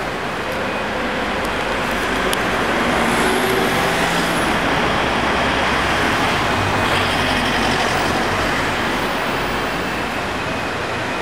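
Steady city street traffic noise, swelling for a few seconds from about three seconds in as vehicles pass.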